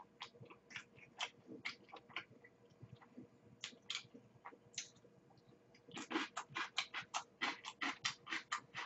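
Close-miked wet chewing and mouth smacks of a big mouthful of macaroni and cheese: soft and scattered at first, then a quick run of about five wet smacks a second from about six seconds in.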